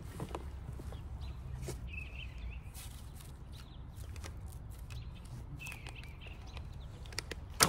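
Small birds chirping over a low steady outdoor rumble, with light clicks as an arrow is nocked and the bow drawn. Near the end comes a single sharp snap as the bowstring is released.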